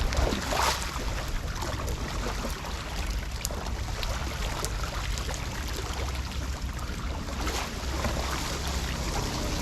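Steady rush of floodwater, with a low wind rumble on the microphone and a few faint clicks.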